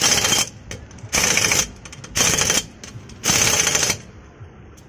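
Pneumatic impact wrench hammering on a car's wheel nuts in four short bursts, tightening the nuts after a tyre change.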